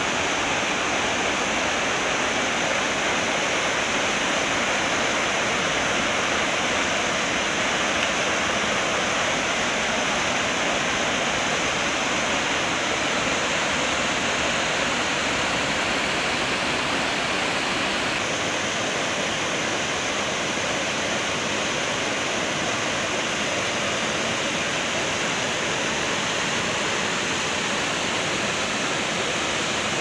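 A waterfall's water rushing, a loud, steady roar of falling water; the sound shifts slightly in tone about 18 seconds in.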